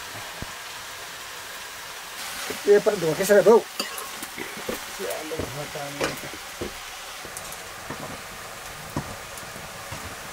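Mustard greens sizzling in an iron wok over a wood fire while a metal spoon stirs them, scraping and knocking against the pan. There is a louder burst about three seconds in, and a few sharp taps after it.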